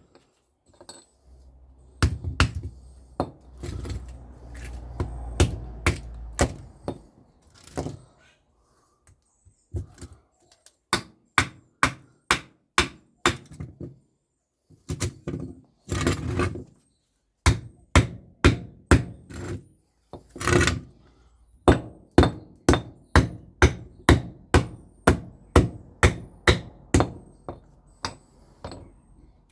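Repeated hammer blows, a long series of sharp knocks at about one to two a second. In the first few seconds the knocks are closer together over a low rumble.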